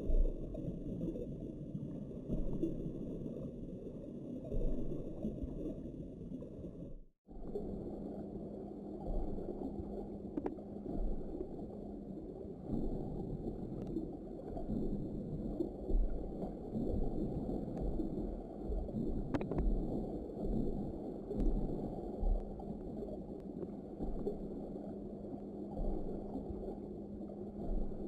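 Muffled low rumble of water heard through an underwater camera's housing. It breaks off for an instant about seven seconds in, and a faint steady hum runs beneath it after that.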